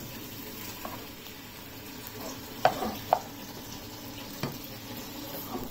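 Noodles and shredded cabbage frying in a non-stick saucepan, a steady sizzle under the scraping and tossing of a plastic spatula. There are a few sharp knocks of the spatula against the pan, two close together near the middle and one later.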